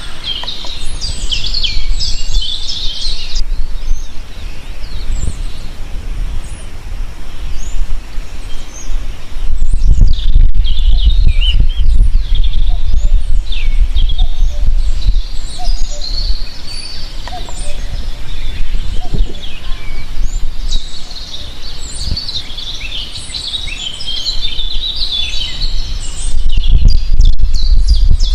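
Small songbirds chirping and twittering, many short high calls overlapping in a busy chorus. Under them runs a heavy low rumble that swells about ten seconds in and again near the end.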